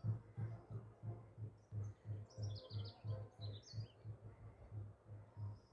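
Faint, steady low drum beat of a carnival procession, about three beats a second, with small birds chirping between about two and four seconds in.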